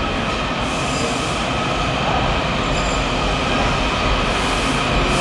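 Washington Metro 7000-series subway train pulling into an underground station: a steady rumble of wheels on rail with a whine running through it, growing slightly louder as it nears, with brief hisses about a second in and near the end.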